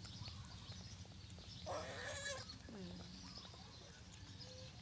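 A young pet macaque's short whining cry about two seconds in, followed by a brief quieter note falling in pitch.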